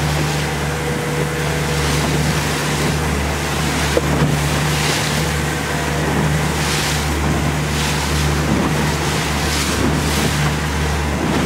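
Outboard motor of a small open boat running steadily under way, a constant low hum, with rushing water and spray from the hull and wake swelling every second or two as the boat crosses choppy waves. Wind buffets the microphone.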